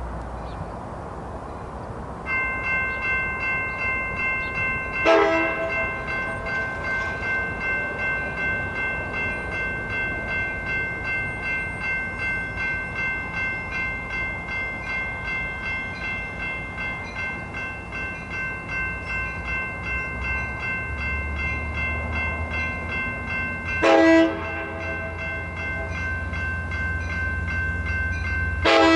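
Amtrak Surfliner cab car's bell ringing on and on in an even pulse, with three short blasts of its horn: one early, one near the end and one at the very end. The train's low running rumble grows underneath in the second half.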